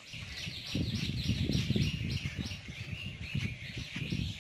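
A bird singing a fast run of repeated falling notes, about four a second, which give way to softer, lower notes about halfway through. Uneven low rustling and thumping lies underneath and is louder than the song.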